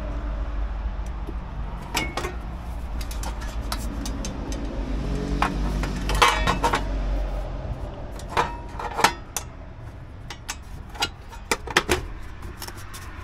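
Hands handling the plastic air-filter housing and cover on a Briggs & Stratton Vanguard 23 hp engine: a string of clicks, knocks and plastic rattles. Underneath runs a steady low mechanical hum that drops off about eight seconds in.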